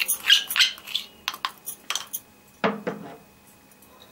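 Plastic spoon tapping and scraping against a ceramic cup as powdered sugar is knocked out into a glass bowl: a quick run of light clicks, then one duller knock about two and a half seconds in.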